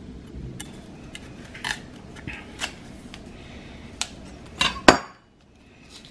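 Chef's knife working under the thick bark of a cassava root, a string of short scrapes and clicks as the shell-like peel is pried off. About five seconds in comes a louder clack of the metal knife set down on a wooden cutting board.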